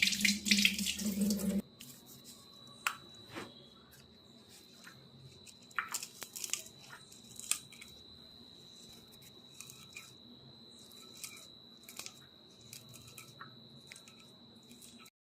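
Tap water running into a sink, cutting off suddenly about a second and a half in. Then scattered small clicks and taps of kitchen handling over a faint steady high-pitched tone.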